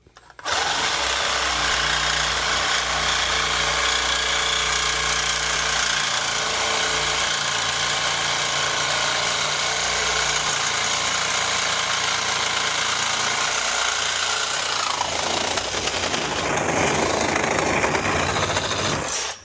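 Reciprocating saw cutting through black steel heating pipe, running steadily for most of twenty seconds and stopping just before the end. Its tone changes about fifteen seconds in.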